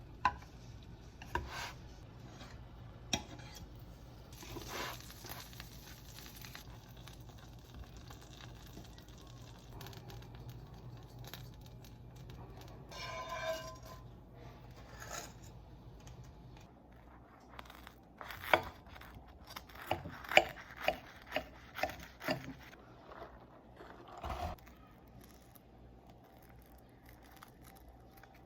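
Food and kitchen handling sounds: tearing, scraping and crinkling with scattered sharp clicks, and a run of louder knocks about two-thirds of the way through.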